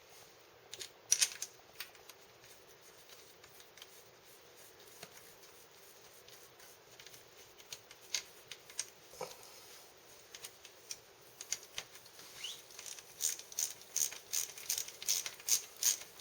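Light metallic clicks and taps of hand tools and the oil filter cover on a motocross engine's crankcase as the cover is refitted and its small bolts are tightened with a wrench. A few scattered clicks at first, then a quicker, louder run of even clicks, about three a second, over the last few seconds.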